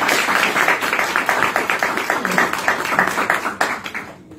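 Audience applauding a welcome, the clapping dying away near the end.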